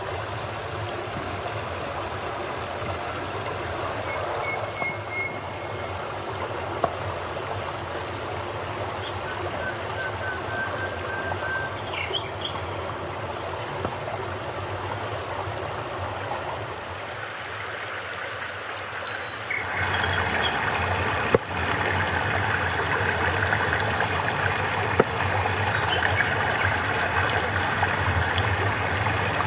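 Steady rush of flowing water. It grows louder and brighter about two-thirds of the way through, with a few sharp clicks after that.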